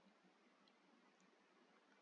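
Near silence: faint room tone with a couple of soft computer mouse clicks.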